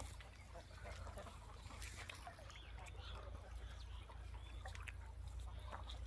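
Faint, scattered bird calls over a steady low rumble.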